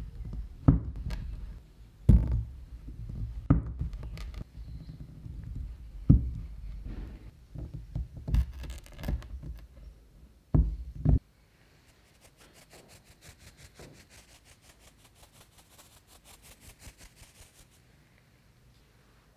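A knife cutting through a slab of chocolate truffle mixture, its blade knocking on the board with each cut: about a dozen sharp thumps, the last two in quick succession. Then the knocking stops and a faint, fast, even ticking follows for several seconds.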